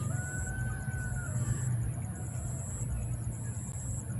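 A rooster's crow trails off in the first second or so, as one held call, over a steady low hum.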